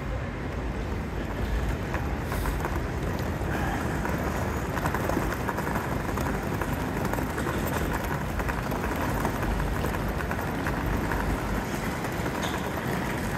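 Steady urban station ambience: a constant low rumble and hiss of traffic and crowd, with no distinct events standing out.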